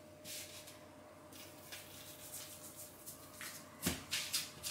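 Soft rustling of disposable gloves and baking paper as a ball of soft dough is handled, with a dull thump about four seconds in as the dough is set down on the floured paper.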